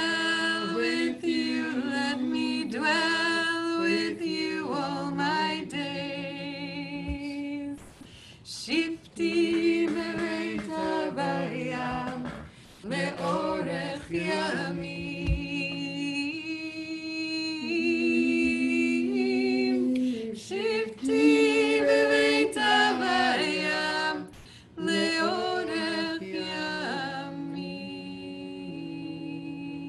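Unaccompanied voices singing a slow melody in long held phrases, with a few brief breaks between them. The singing grows softer near the end.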